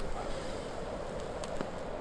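Wood campfire burning, crackling softly with a couple of faint pops about a second and a half in, over a steady low hiss.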